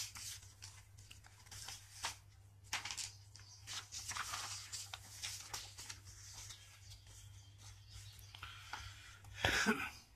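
Paper sheets rustling and crinkling as pages are handled and swapped, in small irregular bursts, with a louder burst near the end.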